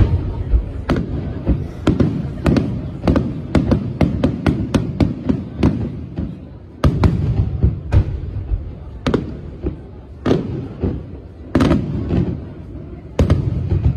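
Aerial firework shells bursting overhead in rapid succession: a fast string of sharp bangs over low booms, with heavier salvos at the start, about seven seconds in and near the end.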